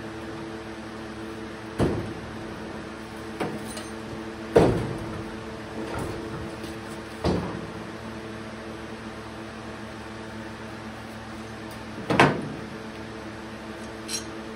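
Several sharp metal knocks and clanks as steel C-clamps are handled and set against the new steel rear frame rail and the car's floor pan, the loudest about four and a half seconds in and another near the end. A shop fan hums steadily underneath.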